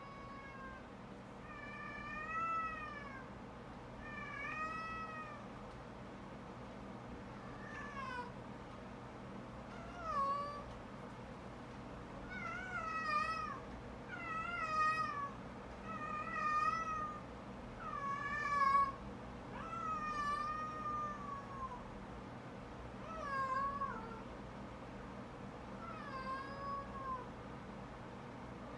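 A cat meowing over and over: about fourteen drawn-out calls, a second or two apart, many of them wavering in pitch.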